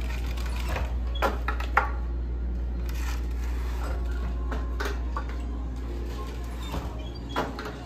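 Wooden floor loom being worked by hand: several irregular wooden knocks and clatters from its frame and parts, over a steady low hum.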